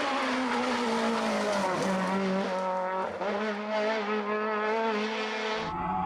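Rally car engine running hard at high revs, its pitch dipping and climbing again as it lifts and changes gear. Just before the end it cuts abruptly to another car with a deeper rumble.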